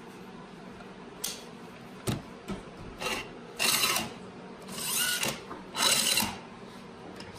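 A Bessey parallel clamp's head is fitted back onto its bar with a few clicks and knocks. It is then slid along the freshly cleaned, paste-waxed bar in three quick sliding strokes. The easy sliding shows that the glue-fouled clamp now runs smoothly after cleaning, waxing and silicone lubrication.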